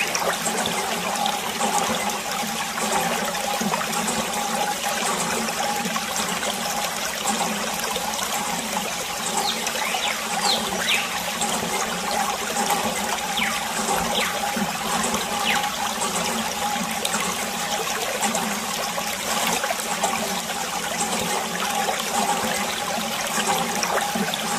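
Water running and trickling steadily, with a few short high chirps now and then.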